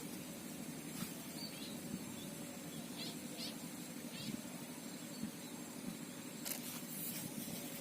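Quiet outdoor ambience: a steady low hum with a few faint, short high chirps and scattered light clicks.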